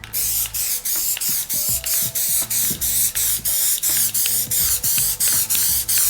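Aerosol spray can of black paint hissing in a continuous spray, with a brief dip about three times a second, as the final coat goes onto the emblems.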